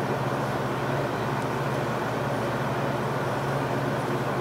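A motor running steadily: an even low hum under a constant whirring noise.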